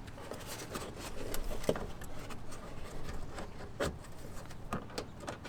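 Rubbing and a few separate sharp clicks as hands work the fender liner back and push C clips onto its edge.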